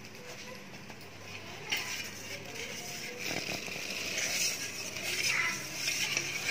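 Flour shifting and rustling inside a ghee-greased metal bowl as the bowl is turned and tilted to dust it, with a few light knocks of the bowl. It grows a little louder in the second half.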